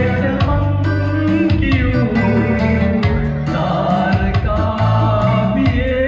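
Men singing karaoke into microphones over a backing track played through a loudspeaker.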